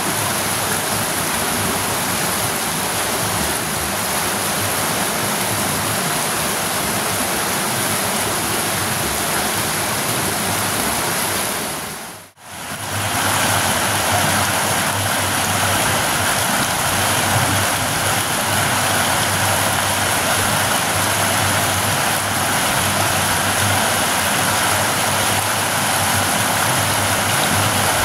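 Shallow river water rushing over rocks in a steady noise. After a brief break about twelve seconds in, water pours past the mouth of a culvert pipe, with a steady deeper rumble under the rush.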